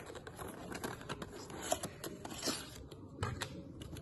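A small cardboard puzzle-cube box being pulled open by hand, its flaps and inner card tray scraping and flexing, with many scattered light clicks and scrapes.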